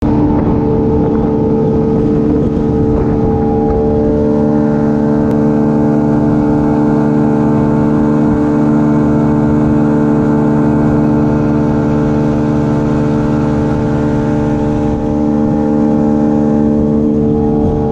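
Motorboat engine running steadily at speed, a constant drone with fixed tones, over the rush of water and spray along the hull.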